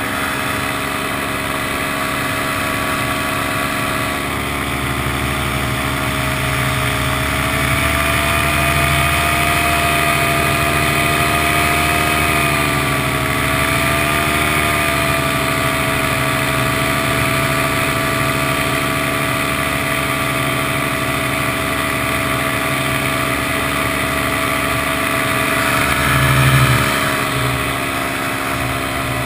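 Paramotor engine and propeller running steadily in flight. The engine note rises a little early on, dips briefly mid-way and recovers, with a short louder swell near the end.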